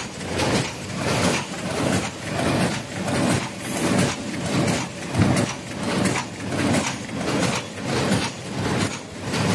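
Paper cup forming machine running, its mechanism cycling in a steady, even rhythm of about three strokes every two seconds.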